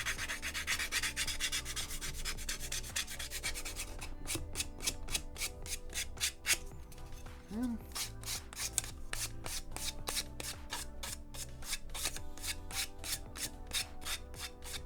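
A sanding pad rubbed back and forth along the edge of a plastic model-kit part, scraping off moulding flash. The strokes are quick and blurred together for the first few seconds, then come as separate scratchy strokes a few times a second.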